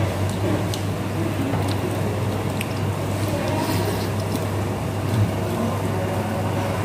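Steady low machine hum of the dining room, with a few light clicks of a spoon and a single thump about five seconds in.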